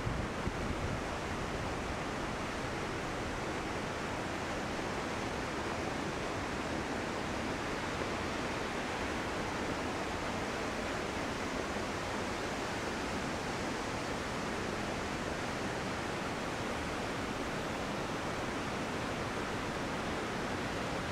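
Steady, even rush of a large waterfall close by. A few low wind thumps hit the microphone in the first second.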